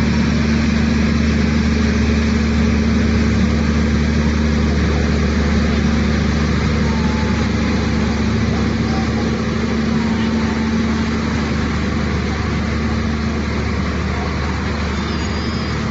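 Train engine running with a steady low drone. A few faint squeaks come near the end.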